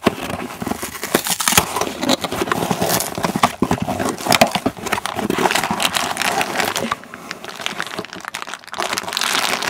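Mailing package rustling and crackling as it is handled and opened by hand, in a busy run of irregular rustles that eases off about seven seconds in.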